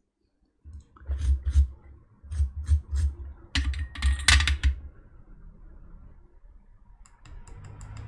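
Irregular clicks and knocks of tools and parts being handled on a workbench, with dull thumps, for the first few seconds. Near the end comes a run of small sharp clicks as the newly resoldered laptop power-button tactile switch is pressed several times.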